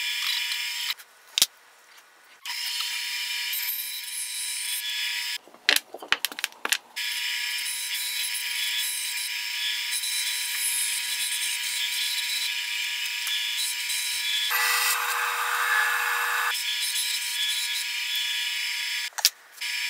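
Bandsaw running with a steady high whine while it cuts shapes out of a pine 2x4. The sound cuts off abruptly three times, with a few clicks, and for about two seconds past the middle it turns lower and fuller as the blade works through the wood.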